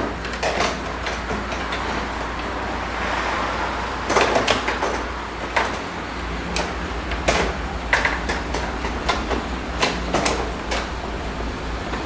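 Irregular clicks, knocks and rattles of the metal and plastic parts inside a BMW E39 car door as hands work at freeing the door latch and lock cylinder. A low steady hum runs underneath.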